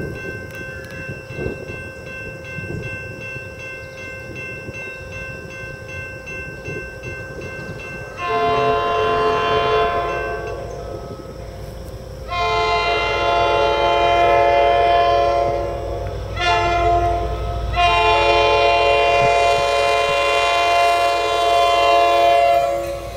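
Nathan K5LA five-chime air horn on a MARC GP39H-2 diesel locomotive, sounding the grade-crossing signal: two long blasts, one short and a final long one. The first blast starts about eight seconds in, after a stretch of steady ringing tones. The locomotive's low diesel rumble grows louder as it nears.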